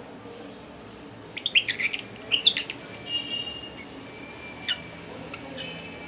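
Lovebirds squawking in two quick bursts of harsh, high calls about a second and a half and two and a half seconds in, followed by a thinner drawn-out call and a few softer ones.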